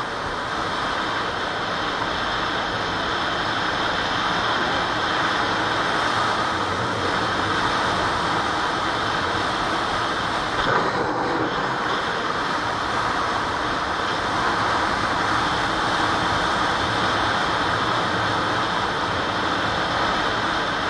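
Steady rush of wind and road noise on a camera riding along on a Yamaha WR200 motorcycle at road speed, with one brief louder bump about halfway through.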